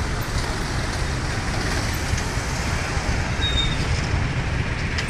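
Steady street traffic noise heard from a moving motorbike in dense traffic: motorbike and car engines running close by.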